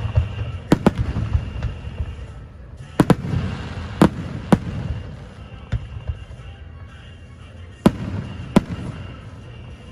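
Fireworks going off: about eight sharp bangs, some in quick pairs, over a low rumbling of booms between them.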